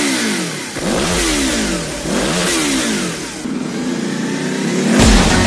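Motorcycle engine revved in a series of quick throttle blips, each note rising and falling, then settling to a steadier note about three and a half seconds in. Music with a heavy beat comes in near the end.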